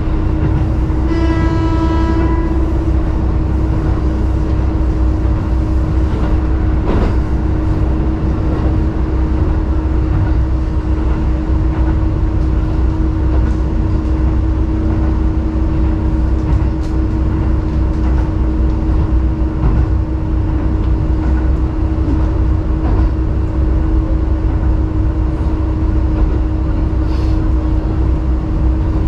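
KiHa 11 diesel railcar running, heard from inside the car: a steady low rumble of engine and wheels under a constant hum. About a second in, a short horn blast sounds for about a second and a half, and a single sharp click comes a few seconds later.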